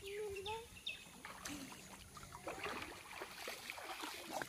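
Light water splashing and lapping from swimmers in a pond: irregular small splashes and drips, busier in the second half. A brief wavering call sounds right at the start.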